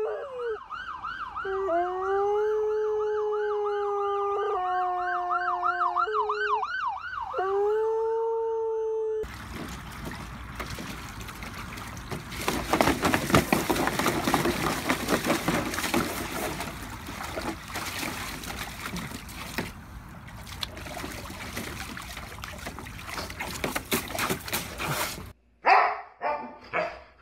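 An emergency-vehicle siren sweeping quickly up and down while a beagle howls along in long held notes inside a car, for about nine seconds. Then water splashing and churning as a dog stamps about in a plastic paddling pool fed by a garden hose. Near the end, a husky-type dog gives a few short barks.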